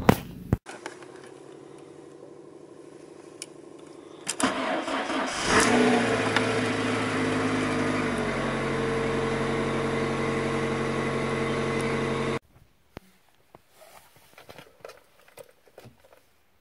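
Fiat Brava 1.6 16V four-cylinder petrol engine cold-started in deep frost: the starter cranks for about a second, the engine catches and flares up in revs, then settles into a steady idle. The sound cuts off abruptly about twelve seconds in, leaving a few faint clicks.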